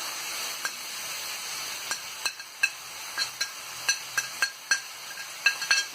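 Chopped onion frying in olive oil in a pan, a steady sizzle. Over it come irregular sharp clicks and light clinks, more frequent in the second half.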